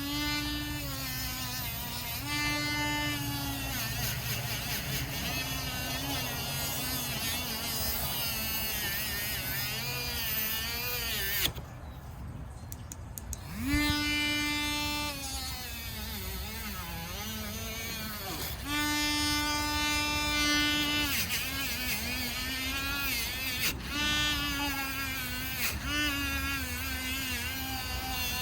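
Small electric power tool running with a steady high whine whose pitch dips and wavers as it works. It stops briefly about eleven seconds in and starts up again a couple of seconds later.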